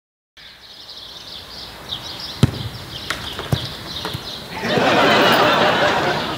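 Outdoor ambience with birds chirping, and a football struck with a sharp thud about two and a half seconds in, followed by a couple of lighter knocks. Near the end a loud rush of noise swells up for about a second and a half.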